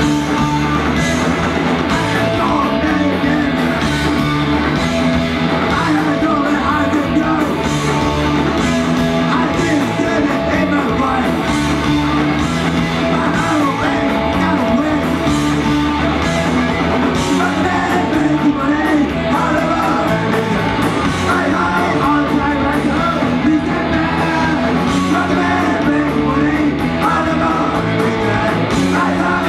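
Punk rock band playing live, with guitar and yelled singing over a steady beat.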